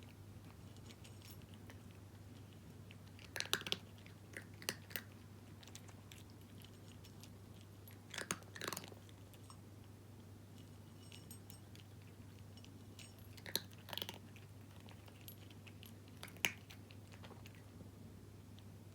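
A cat crunching dry kibble, in short clusters of crunches a few seconds apart, over a steady low hum.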